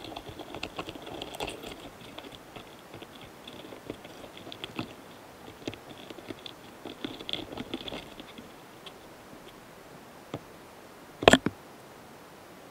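Flower longhorn beetles recorded very close up, making fine, fast scratchy clicks and ticks in irregular runs, the courtship and mating sound of the pair. The clicking dies down after about eight seconds, and about eleven seconds in there is one short, loud rustling knock.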